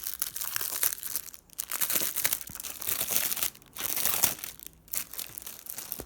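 Packaging being handled and pulled open to unwrap a magnetic poster frame: crinkling and tearing in irregular spurts, with a few short pauses.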